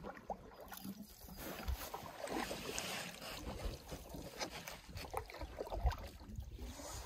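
Faint water sounds of a canoe being paddled on calm water: soft swishes and drips from the paddle strokes, with a few low thumps of wind on the microphone.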